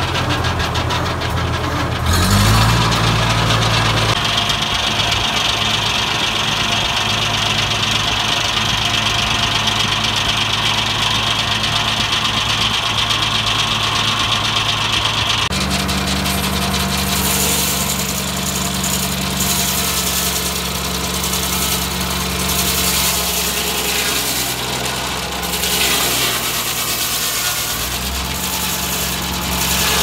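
Engine-driven circle sawmill running with its newly fitted blade spinning free, the engine revved up about two seconds in to see whether more speed makes the blade run true. A steady high whine rides over the engine for several seconds, and past the middle the engine note changes.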